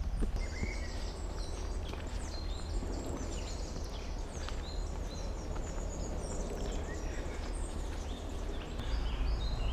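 Several small birds singing, a dense run of short high chirps and trills, over a steady low rumble of wind on the microphone.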